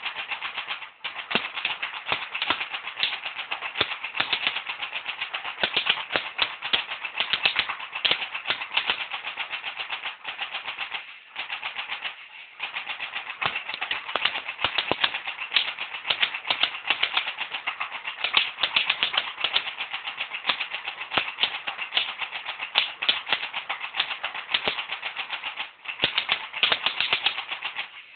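P90-style airsoft BB gun firing in long, rapid strings: a fast, dense rattle of shots broken by a few brief pauses.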